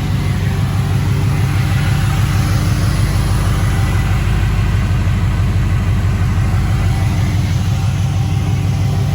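LS V8 engine idling steadily.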